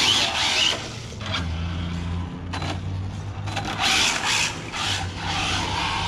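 Radio-controlled car driving on asphalt in repeated bursts of throttle, its motor whining up and its tyres scrabbling over the surface.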